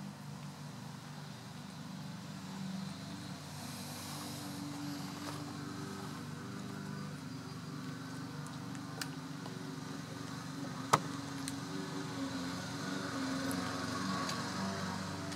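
Steady low machine hum, with a single sharp click about eleven seconds in.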